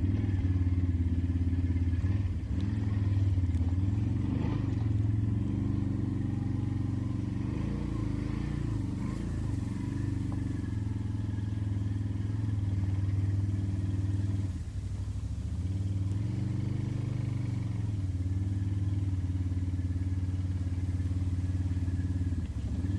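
Can-Am ATV engine running steadily, its note rising and falling slightly a couple of times.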